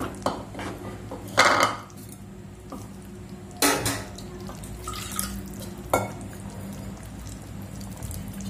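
A spoon knocking and clinking against a nonstick pan while a thick gravy is stirred: a handful of short sharp knocks, the loudest about a second and a half in, over a steady low hum.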